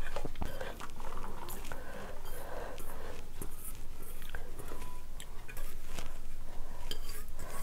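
Close-miked chewing and mouth sounds, then the light clinks and scrapes of an aluminium handi pot as cooked rice is tipped out of it onto a plate.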